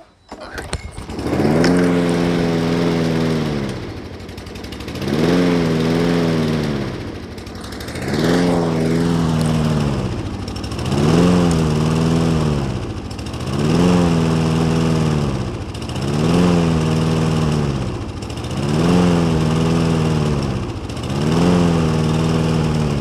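Toro Recycler push mower's small engine starting about a second in, then surging up and down in speed and pitch about every three seconds, eight times over. This hunting is what the owner puts down to not enough air getting through, from the air filter or a vacuum leak.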